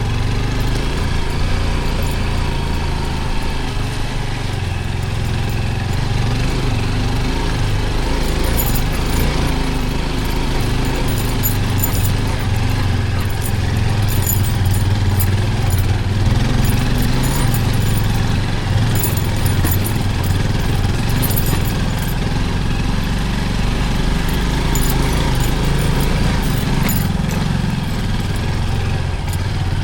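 Small motorcycle engine running steadily for the whole stretch, a continuous low rumble with light rattles on top.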